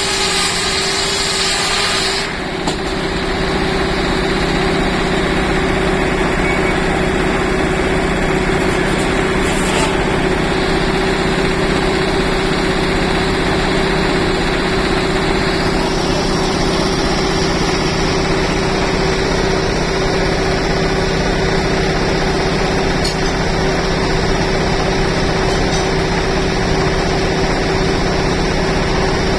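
Old sawmill machinery running steadily: a constant engine-like drone with a strong steady hum. A bright high hiss cuts off about two seconds in.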